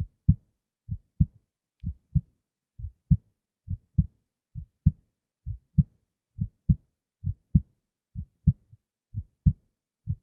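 A human heartbeat in steady lub-dub pairs, about 65 beats a minute. The second thump of each pair is the louder one.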